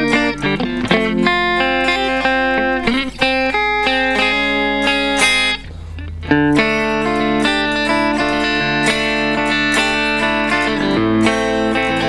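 Ibanez RC720 Premium electric guitar with Core-Tone humbuckers played through a clean amp sound: a run of picked notes and chords that ring on, with a short pause on one low note about halfway through.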